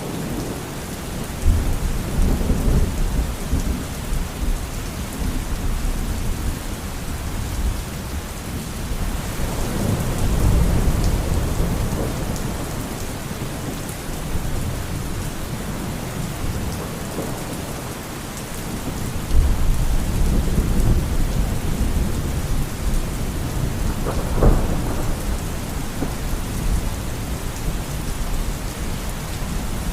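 Steady rain with rolling thunder: low rumbles swell and fade several times, with a sharper thunder clap about three quarters of the way through.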